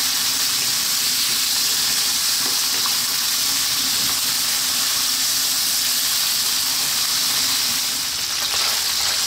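Chopped bacon frying in sunflower oil in a wok over high heat: a steady, even sizzle.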